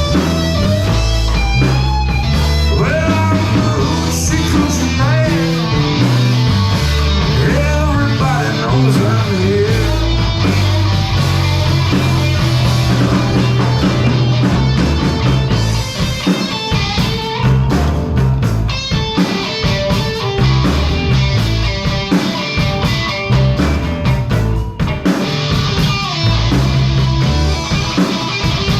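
Live blues-rock band playing an instrumental break between verses, with no singing. A lead guitar solo with bent, sliding notes runs over a steady bass line and drums.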